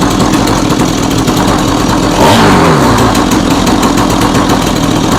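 Stihl two-stroke chainsaw running with its bar and chain off, the new clutch drum free to spin, and revved up about two seconds in. It runs smoothly now that the carburettor's low-speed screw has been opened a half turn.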